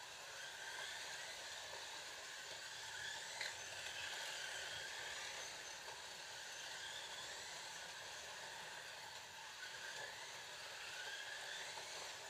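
Several Scalextric slot cars racing round a plastic track: a steady whirring of small electric motors and tyres, with faint whines that rise and fall in pitch as the cars speed up and brake for corners.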